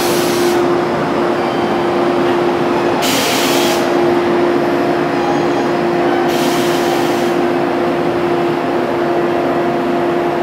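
JR West 583-series electric train moving slowly alongside the platform, its electrical equipment giving a steady hum with one constant tone. Three short hisses of air, about three seconds apart, cut through it.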